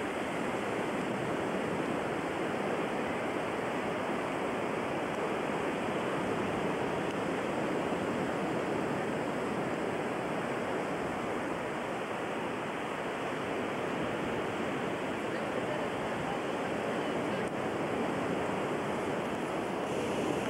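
Steady rushing of surf and wind, with an even level and no distinct wave breaks.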